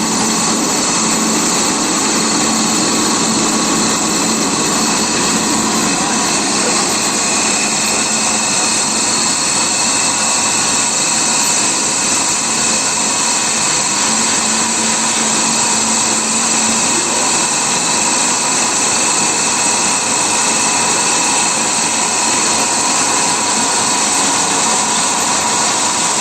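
Pet feed extruder machine running steadily: a loud, even mechanical noise with several constant tones through it.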